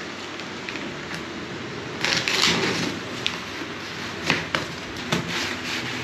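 A large cardboard box being opened by hand: the flaps are pulled open with a loud rustling scrape about two seconds in, followed by several sharp taps and knocks of cardboard.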